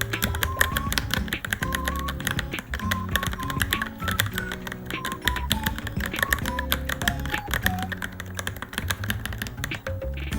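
Fast, continuous typing on a Varmilo Minilo mechanical keyboard, many key clicks a second, over background music with a melody and bass line.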